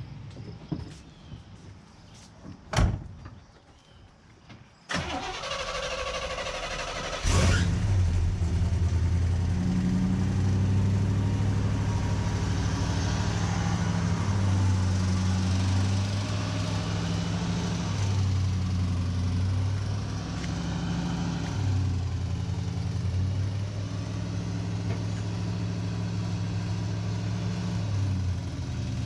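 1967 Chevelle SS's 396 big-block V8 starting: a few clicks, then the starter cranks for about two seconds before the engine catches and settles into a steady, fast idle of about 1,500 rpm.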